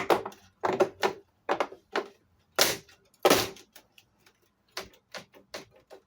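A quick, irregular run of sharp clicks and knocks from hard parts being handled and fitted. It is loudest through the first three and a half seconds, then fades to lighter ticks.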